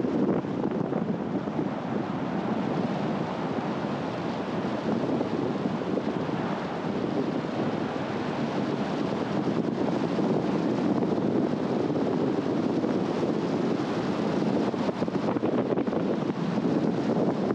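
Steady rushing wind and road noise from a car driving, even throughout, with no engine note standing out.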